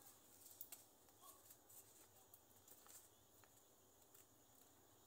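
Near silence, with a few faint short clicks and rustles from scissors snipping cowpea leaves over a paper coin envelope.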